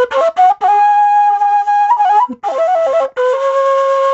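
Solo flute melody: quick ornamented runs of notes leading into a long held note, then another run and a second long, lower held note, with two brief breaks in between.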